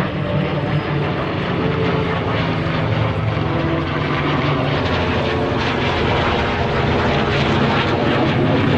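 Engines of a pair of airplanes flying overhead in formation: a steady engine sound whose pitch shifts slowly, growing a little louder near the end.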